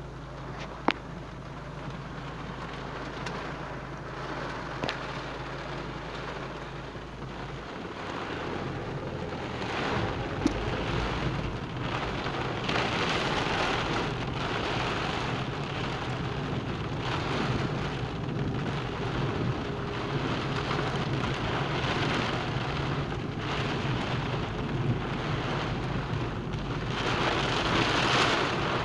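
Heavy rain drumming on a car's roof and windscreen, heard from inside the moving car over a low engine hum. The downpour grows heavier toward the end, with a couple of brief sharp knocks.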